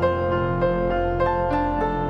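Background music: a gentle keyboard melody with notes changing every half second or so over a steady low bass.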